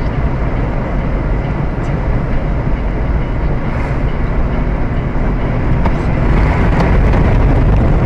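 Steady road and engine noise heard from inside a moving car at highway speed. It grows slightly louder about six seconds in.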